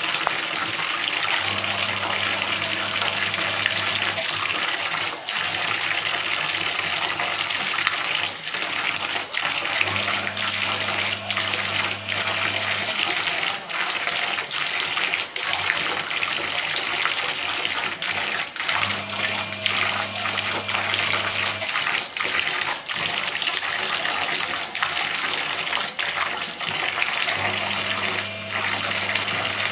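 A thin stream of tap water pouring steadily into a plastic basin of water, with a corgi's paws splashing at it now and then. A low hum comes on for about three seconds, four times, roughly every eight seconds.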